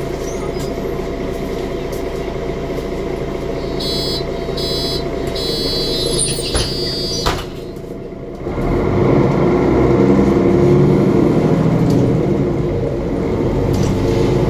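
Interior of a Mercedes Conecto G articulated bus with the OM457LA diesel idling at a stop. Starting about four seconds in, an electronic door-warning signal beeps in short bursts for about three seconds, and the doors shut with a couple of knocks. After a short lull, the engine gets louder as the bus pulls away.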